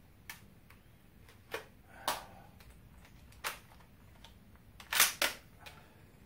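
Short, sharp metallic clicks and clacks from a PTR 91 rifle being handled, a few spread out and the loudest a close pair about five seconds in.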